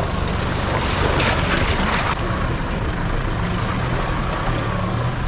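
Off-road vehicle driving: a steady low engine hum under road and wind noise, with a brief louder rush of noise about a second in.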